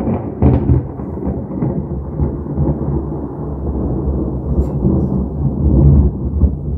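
Loud thunder following a lightning flash: sharp cracks in the first second, then a long, low rolling rumble that swells again near the end.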